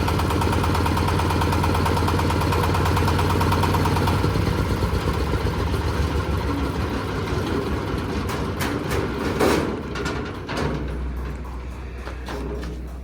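Engine-driven corn sheller running steadily, then winding down from about four seconds in, with a few clatters around nine seconds in and a lower steady hum left near the end. The sheller is driven by a Jiangfa engine.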